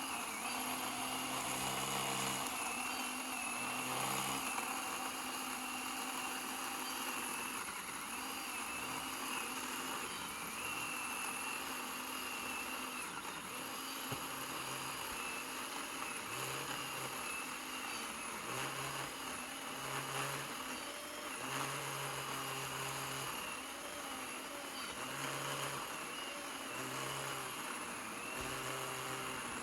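SORAKO 20-volt 10-inch cordless electric chainsaw running as it saws into a pine trunk, a steady high motor whine over the rasp of the chain, the pitch wavering slightly as the motor loads up in the cut.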